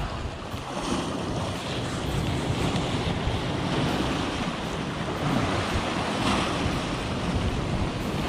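Sea surf washing and breaking against a rocky shoreline, a steady rush of water that swells in surges every few seconds.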